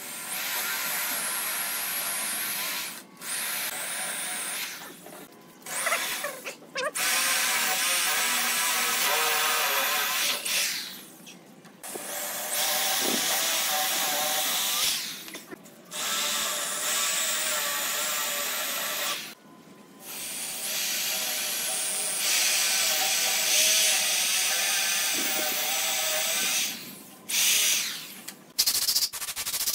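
Handheld corded electric drill running in repeated bursts of a few seconds each, with short pauses between, as it bores into wooden pallet boards.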